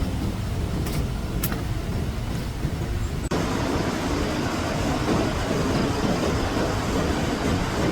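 Floodwater rushing in a steady, rumbling roar. About three seconds in it cuts abruptly to a fuller, hissier rush.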